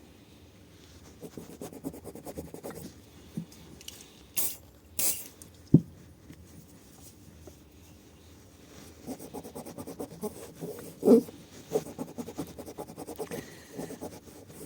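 Metal engine parts being handled and worked by hand: scattered faint clicks and scrapes, two short hisses about four and five seconds in, and a sharp knock near six seconds, with another knock about eleven seconds in.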